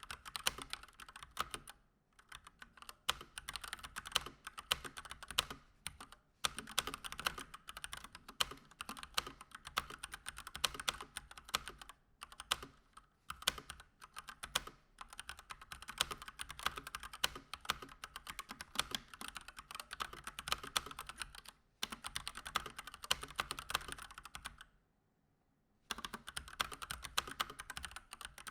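Fast typing on a Keychron C1 mechanical keyboard with stock Gateron Red linear switches: a rapid stream of key clacks in bursts, with short pauses and a silent break of about a second near the end.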